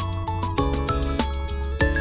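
Instrumental background music with a steady, quick beat, a bass line and a stepping melody.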